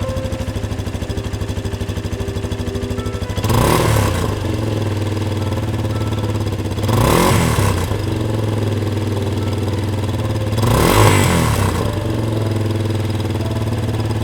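2008 Yamaha XT250's single-cylinder four-stroke engine idling steadily through its exhaust, blipped three times, the revs coming about every three and a half seconds and each dropping straight back to idle.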